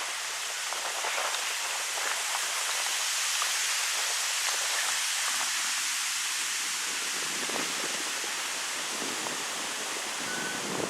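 Wind blowing through birch trees: a steady rustling hiss of leaves that swells for a few seconds and then eases.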